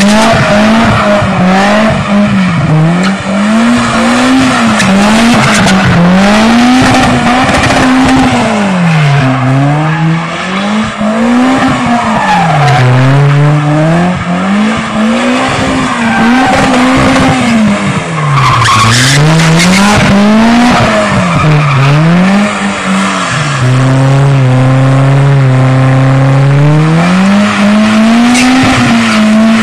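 First-generation Lexus IS saloon's engine revving hard as it spins donuts, its pitch swinging up and down every two to three seconds and holding steady for a few seconds late on, with the rear tyres skidding and squealing throughout.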